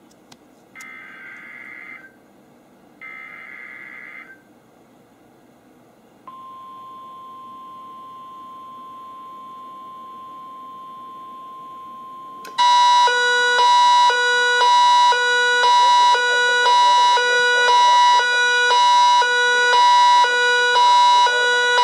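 NOAA Weather Radio weekly test heard through a First Alert WX-37 weather alert radio: two short screeching bursts of SAME header data, then after a pause the steady 1050 Hz weather alert tone for about six seconds. About halfway through, the alert tone sets off the radio's own alarm, a much louder beeping that alternates between pitches and runs on to the end.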